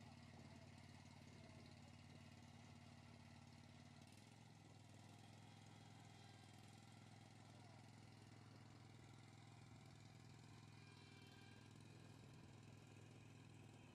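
Faint, steady hum of the Spider ILD02 remote-controlled slope mower's petrol engine running as the mower drives about. Its note shifts slightly about four seconds in.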